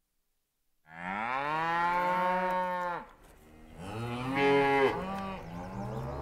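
Moo can (cow-in-a-can toy) giving two moos. The first starts about a second in and slides down in pitch for about two seconds. The second, louder and warbling, comes about four seconds in, with a low droning tone building underneath near the end.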